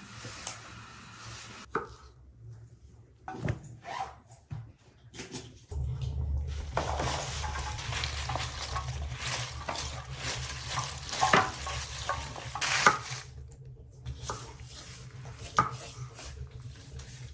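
Kitchen cooking sounds: stirring and utensils knocking against pots and dishes, with a hiss like sizzling in the middle stretch. A steady low hum starts about six seconds in.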